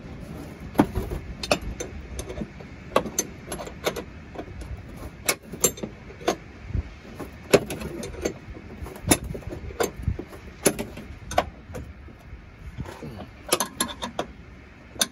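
A wrench clicking and clinking against metal as a 17 mm harness mounting bolt is tightened down: irregular sharp ticks, roughly one every half second to a second, with short clusters.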